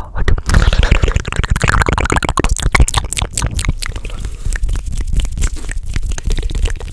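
Fast ASMR mouth sounds and hand sounds close to the microphone: a rapid, irregular stream of clicks and pops over a steady low rumble.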